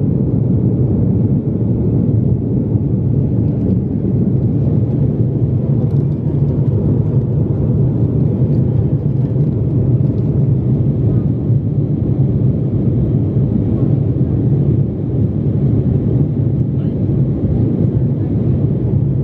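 Steady low engine and airflow noise inside a jet airliner's cabin as it climbs just after takeoff.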